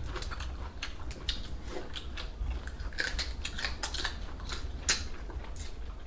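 Chopsticks and tableware clicking and clattering against bowls and plates during a seafood meal: many light, irregular clicks, with a steady low hum underneath.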